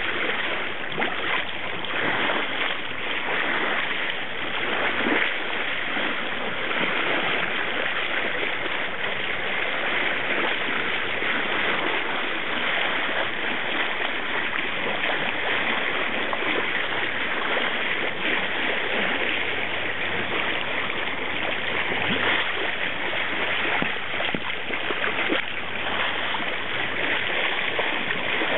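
Water rushing and splashing steadily along the bow of a boat under way, with scattered brief splashes and a low engine hum underneath.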